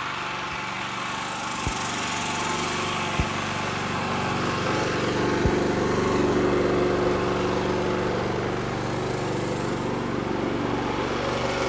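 Predator 9500 inverter generator's 459cc engine running steadily under heavy load from two RV air conditioners and a refrigerator, growing slightly louder midway. A few faint clicks.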